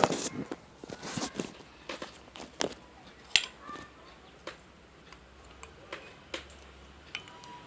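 Clear slime being squished and pulled by hand, giving irregular sharp clicks and sticky pops that are thickest in the first few seconds and thin out after.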